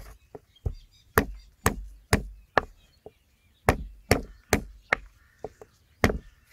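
A wooden pestle pounding fresh ginger on a wooden chopping board, smashing the root flat: heavy, sharp knocks about two a second, with a brief pause about halfway through.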